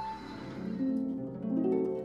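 Background music: a run of plucked notes climbing in pitch over a held low chord.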